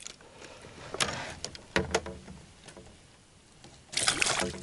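A bass being landed by hand beside a small boat: a few sharp knocks and clicks about one to two seconds in, then a short burst of splashing near the end as the fish is grabbed by the lip at the water's surface.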